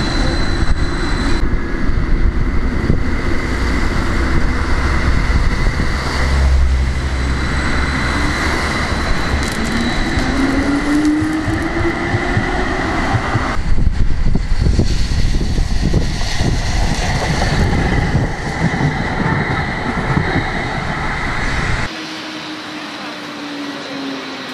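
Stadler low-floor articulated tram passing close by on new track, its running noise a loud steady rush with a deep rumble and a rising whine around the middle. Near the end the noise drops suddenly to quieter street sound with a faint falling tone.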